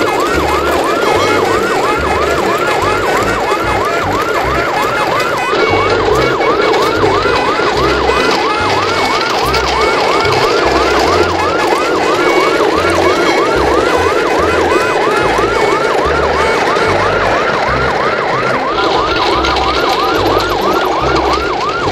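Electronic yelp-style siren, a rapid rising-and-falling wail repeating about three times a second without a break.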